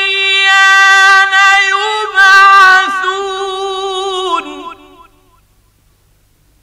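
A male reciter chanting the Quran in the ornamented mujawwad style, holding one long high note with fine trills. The pitch rises a little about two seconds in, and the note wavers before stopping about five seconds in.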